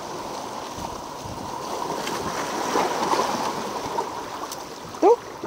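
Sea water washing among shoreline boulders, a steady rush of water. A short rising sound cuts in briefly near the end.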